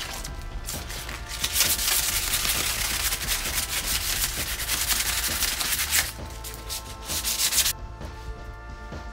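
Coarse 60-grit sandpaper rubbed by hand along a rusty steel bicycle fork, taking it down to bare metal, in quick back-and-forth rasping strokes. The sanding eases off briefly, picks up again, and stops abruptly about a second before the end.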